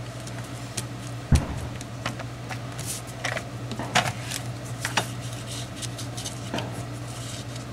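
Cardstock and paper embellishments being handled and pressed down on a scrapbook layout: light rustles and taps, with one sharper thump about a second in, over a steady low hum.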